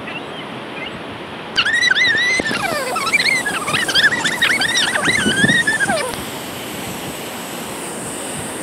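Terns calling, a rapid run of high, overlapping calls that starts about a second and a half in and stops about six seconds in, over steady surf and wind.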